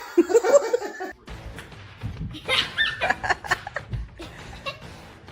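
Background music with a person laughing, and a voice briefly in the first second.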